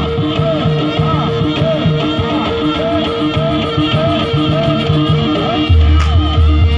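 Loud traditional Javanese ensemble music for a jaranan dance: a steady held tone and a repeating pulsed note pattern under short, curling melodic phrases, with deep bass notes that drop out early and come back about six seconds in.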